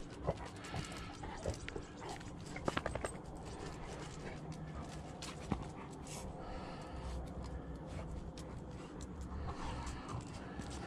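A dog close by, wanting to play, with a few sharp clicks, several together about three seconds in.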